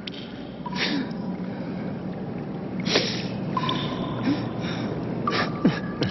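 A sleeping man breathing, with a sharp, noisy breath about every two seconds, over a low steady hum.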